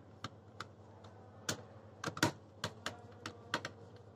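Screwdriver working a terminal screw on a contactor, tightening a wire connection: a string of about ten sharp, irregular clicks.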